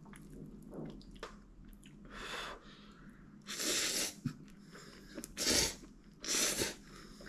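Instant spaghetti noodles slurped from the bowl: four short, noisy slurps about a second apart, starting about two seconds in.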